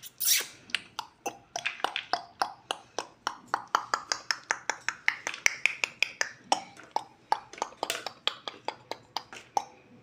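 Pet parrot making a rapid, uneven run of sharp clicks, about four to five a second, some with a brief chirpy note.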